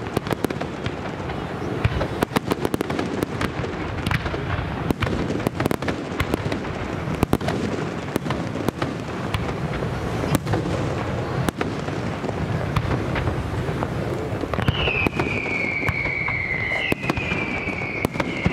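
Fireworks display: a continuous barrage of aerial shell bursts and crackle, with many sharp bangs. In the last few seconds, three whistling fireworks sound one after another, each whistle dropping in pitch.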